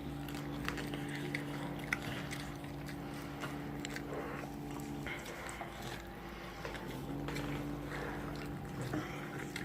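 Someone biting and chewing crispy fried food, with scattered small crunches and crackles. A steady low hum runs under it, stops about halfway through and comes back near the end.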